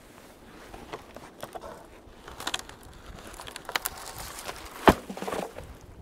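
Dry, frozen dead wood cracking and snapping as a standing dead sapling is worked loose and broken for firewood: a few small cracks, then one sharp loud crack about five seconds in, followed by brief rustling of branches.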